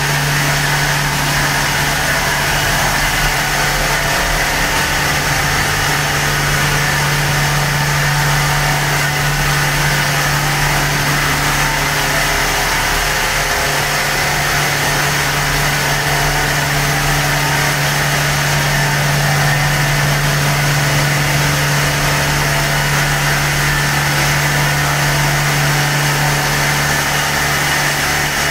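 Tammermatic T700 Turbo automatic car wash running its double-pass side high-pressure wash: a steady hum of the high-pressure pump under the even hiss of water jets.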